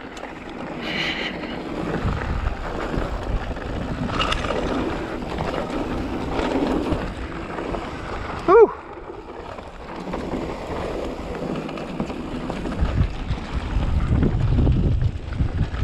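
Mountain bike riding along a dirt trail: wind buffeting the microphone over rolling tyre and trail noise, with a short falling squeal about eight and a half seconds in.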